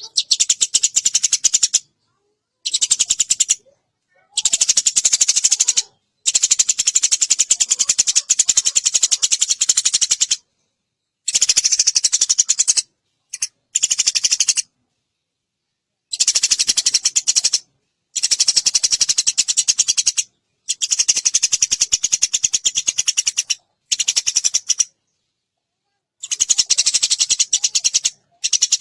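Eurasian tree sparrow chattering in fast, clear trills of rapidly repeated chirps. The trills come in bursts of one to four seconds, each cut off abruptly by a short silence.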